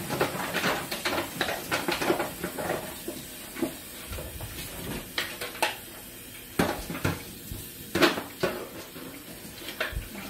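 Pans, dishes and utensils clattering and clinking as they are handled: a quick run of clinks and knocks over the first few seconds, then separate knocks, the loudest about eight seconds in.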